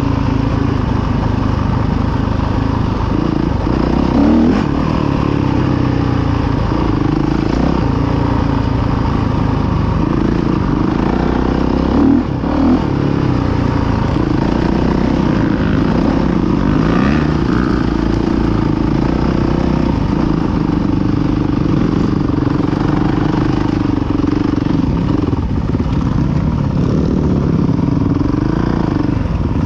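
Dirt bike engine running as the bike is ridden off-road, the revs rising and falling with the throttle. There are brief louder blips of throttle about four seconds in and again about twelve seconds in.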